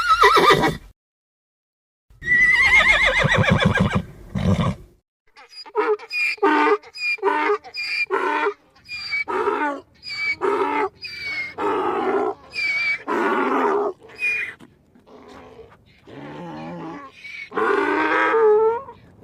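Cartoon donkey braying: a short call, then a long wavering bray, then a run of short repeated brays about two a second, ending in another wavering bray.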